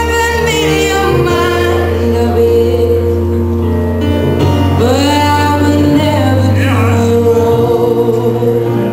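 Slow ballad played loud, a singer sliding into long held notes over a steady low accompaniment.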